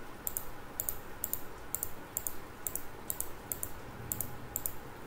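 Computer mouse button clicking at an even pace, about two clicks a second, each click a quick press-and-release pair. The clicks are points being placed one by one to draw a star-shaped mask.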